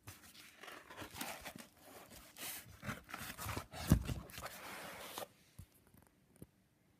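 Collaged paper and card pages of a ring-binder junk journal being turned by hand, rustling and crackling with a loud thump about four seconds in as a page lands; the rustling stops a little after five seconds, leaving only a faint tick or two.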